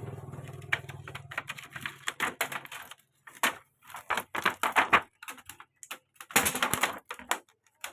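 Hard parts of a TV being handled, clicking and clattering in quick, irregular runs; a low hum fades out in the first second or so.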